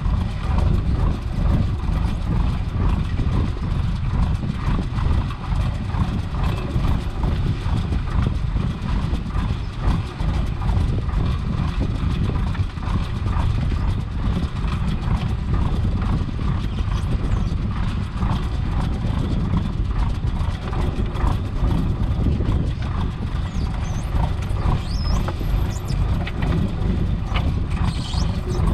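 A fishing boat's engine running steadily with a heavy low drone, under irregular knocking and rustling of a gillnet being hauled and shaken by hand.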